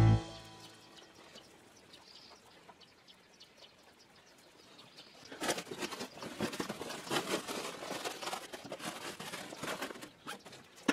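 A guitar music track ends at the start. After a few seconds of near silence, irregular rustling and crackling comes as hands press and smooth a stuffed hoodie-and-jeans grappling dummy.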